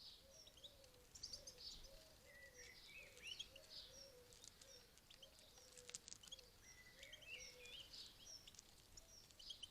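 Faint chirping and twittering of small garden songbirds, European goldfinches at a feeder, in scattered short high calls. Underneath, a low note repeats steadily about twice a second.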